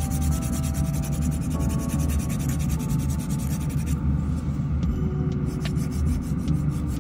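Rapid, even rasping strokes of a nail file on a fingernail that stop about four seconds in, over the steady low hum of a nail-table dust collector fan. Faint background music.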